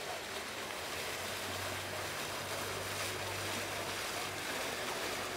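Steady wash of canal water and wind noise from a gondola ride. A low, steady engine hum joins about one and a half seconds in and fades near the end.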